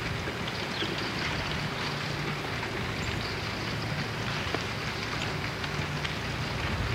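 Amtrak Empire Service train, led by a P32 diesel locomotive, approaching from a distance: a steady low rumble under an even hiss.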